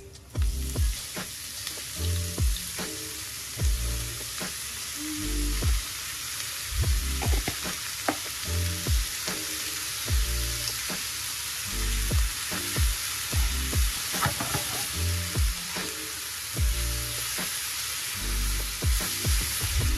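Food sizzling steadily in a hot pan while being stirred, with frequent short clicks and scrapes of the spatula against the pan.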